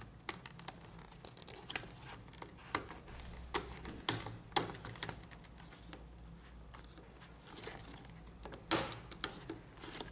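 Scattered small clicks and short scrapes of hard plastic parts on a Lexmark laser printer drum unit being worked with a small screwdriver at the drum's locking ring, with a louder cluster of clicks near the end.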